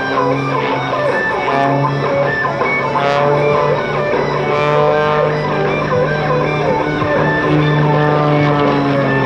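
Instrumental background music led by guitar, with held notes over a steady low bass line.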